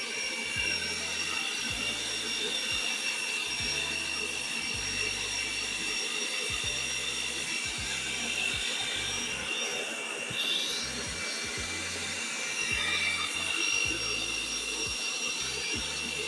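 Electric mixer running steadily, creaming butter and sugar, with a constant high whine from its motor.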